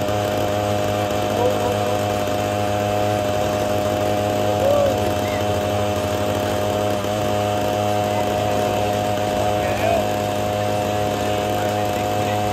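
Classic scooter's two-stroke engine running at steady revs, the pitch held almost flat throughout.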